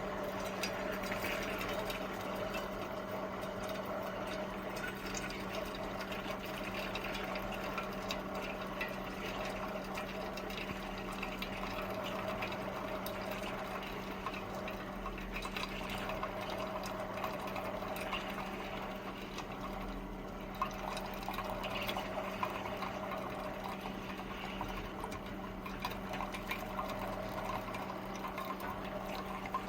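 Water gurgling and trickling in a Hamilton Beach FlexBrew Trio coffee maker over a steady hum, with small scattered ticks.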